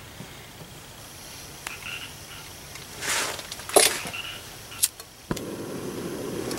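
Backpacking canister stove, an MSR Pocket Rocket, being lit: a short rush of gas about three seconds in, two sharp clicks, then the burner catches a little after five seconds in and runs with a steady burning noise.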